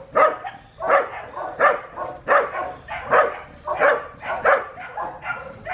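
Border Collie barking in a steady series, about eight sharp barks roughly 0.7 s apart, at a helper holding a bite sleeve during protection work.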